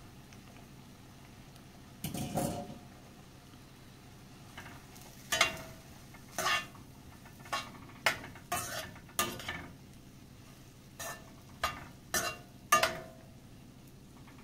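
Metal kitchen utensil knocking and scraping against cookware: one longer scrape about two seconds in, then about a dozen sharp, irregular clinks, some ringing briefly. A faint steady low hum runs underneath.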